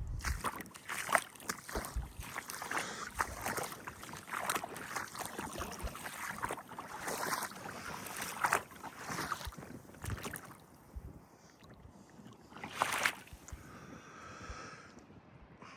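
Wind buffeting the microphone over sea water splashing and sloshing, with irregular short crackles and a brief louder gust about thirteen seconds in.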